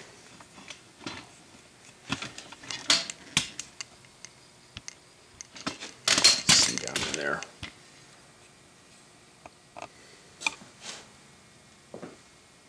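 Metal bandsaw guide parts and hand tools clinking and clattering on the metal saw table while the lower guide is swapped out: a run of knocks about two seconds in, a louder, longer clatter about six seconds in, then a few light clicks.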